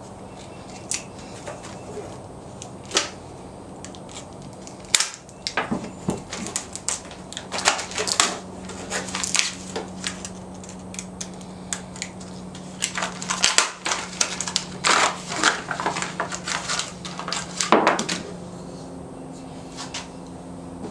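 Packaging being handled and opened by hand: irregular crackling, crinkling and sharp clicks, sparse at first and busiest through the middle, over a steady low hum.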